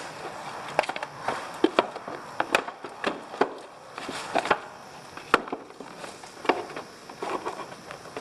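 Irregular clicks and knocks of hard plastic parts being handled and fitted together, as the engine computer is worked down into its plastic housing in the airbox.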